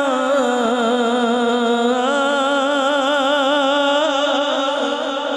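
A man singing a Punjabi devotional verse without instruments into a microphone, holding one long note with an even vibrato that shifts slightly in pitch about two seconds in.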